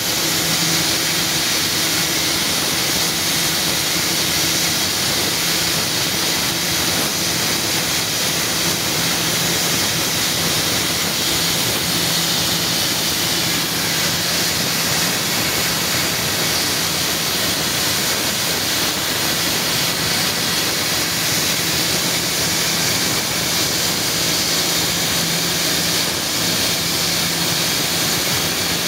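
Water well drilling rig running: a steady rushing hiss over a low, even engine hum, with no break or change.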